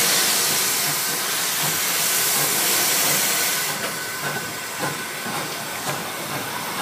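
Narrow-gauge steam locomotive starting away, heard from the cab: a loud, steady hiss of steam that drops suddenly about four seconds in, followed by softer, irregular knocks.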